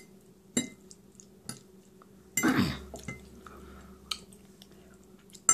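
Metal fork clinking and scraping against a plate of food as it is scooped up: a few sharp separate clinks, with one longer, louder noise about two and a half seconds in.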